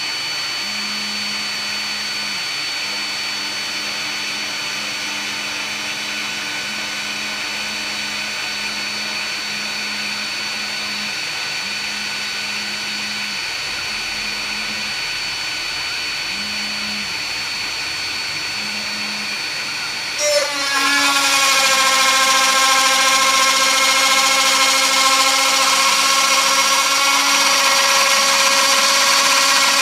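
TTA 3020 desktop CNC router running with a steady high-pitched whine and a low hum that comes and goes in short spells. About two-thirds of the way through it suddenly gets louder, the pitch briefly rising, and settles into a stronger, steady whine with several tones.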